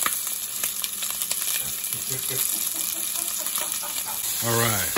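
Italian sausages frying in olive oil in a stainless steel skillet: a steady sizzle with small crackles and pops of spitting fat.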